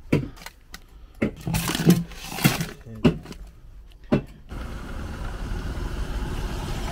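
Clicks, knocks and clatter of a motorhome fridge being opened and beer cans taken out of the freezer compartment, several sharp knocks in the first four seconds. Then, from about four and a half seconds in, a motor scooter's engine running steadily as it rides up.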